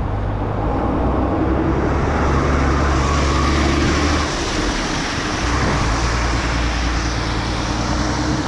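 Truck engine running close behind a bicycle, a steady low hum with road noise that dips briefly about halfway through and then picks up again.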